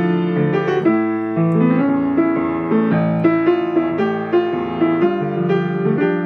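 Grand piano played solo: a melody over chords, with struck notes following one another and ringing on as they overlap.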